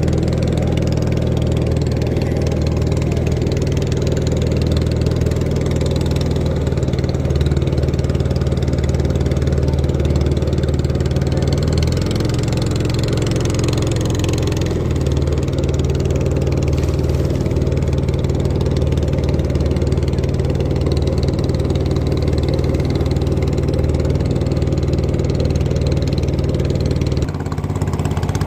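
Engine of a small wooden motorboat running steadily under way, its note shifting for a few seconds about twelve seconds in and easing off near the end, with water rushing along the hull.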